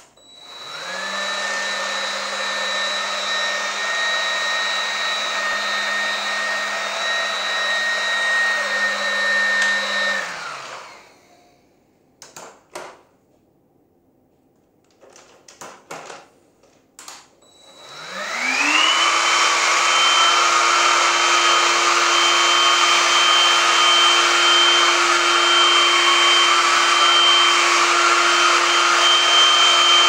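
Rowenta Dual Force cordless stick vacuum switched on: its motor whines up to speed, runs steadily for about ten seconds and winds down. After a few handling clicks it starts again and runs on at a higher, steady pitch.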